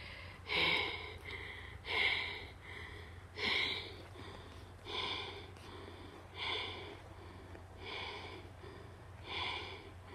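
A child breathing close to the microphone, seven breaths evenly spaced about a second and a half apart.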